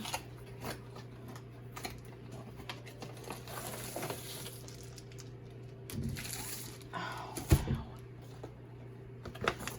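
A diamond painting kit's packaging being handled and opened: rustling and crinkling with scattered light clicks and taps, and one louder thump about seven and a half seconds in. A steady low hum runs underneath.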